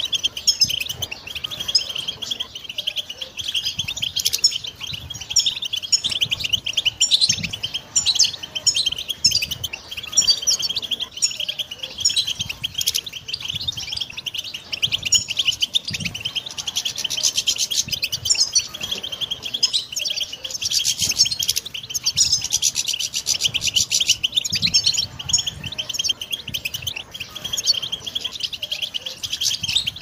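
European goldfinch singing a continuous, rapid twittering song of quick high chirps and trills.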